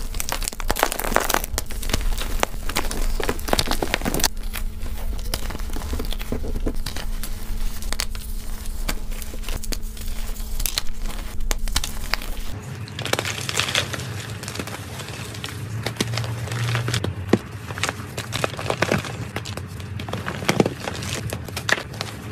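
Hands squeezing and crushing blocks of dyed gym chalk: dry crunching and crumbling with many small sharp cracks as the chalk breaks into powder. About halfway through, the sound changes at a cut to hands crumbling powdery green gym chalk.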